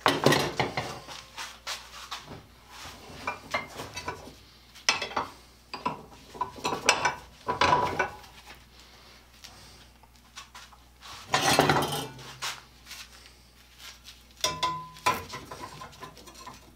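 Iron parts and tools clanking and scraping on a workbench as they are picked up and moved, in irregular knocks and rubs. The loudest clanks come at the start and about eleven seconds in, and a struck piece rings briefly near the end.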